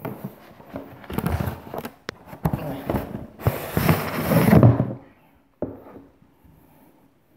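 Cardboard box and packing rustling and scraping as a wooden board is slid out of it by hand, with a sharp click about two seconds in and the loudest scraping around four seconds. A single tap follows about a second later.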